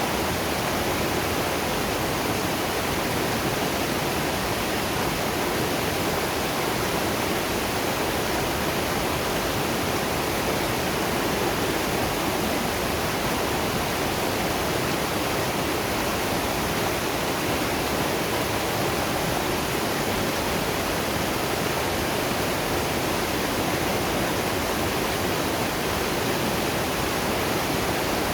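Waterfall and river water running: a steady, even rush of water noise that does not change.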